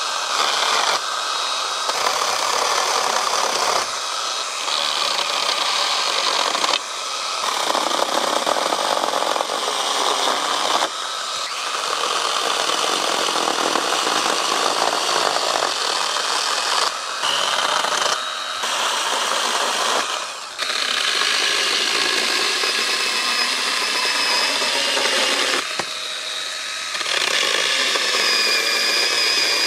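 Battery-powered Husqvarna Aspire 18-volt mini chainsaw (handheld pruner with a 10 cm bar and chain) running and cutting through deadwood branches: a steady motor whine with the chain chewing wood. It runs in a series of cuts, with brief breaks every few seconds.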